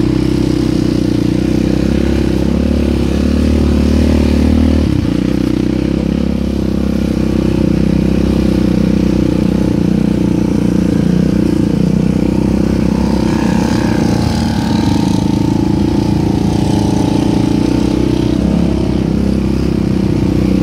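ATV engine running steadily and loud while riding, heard close from the machine itself, its note shifting slightly about five seconds in and rising a little in pitch around two-thirds of the way through.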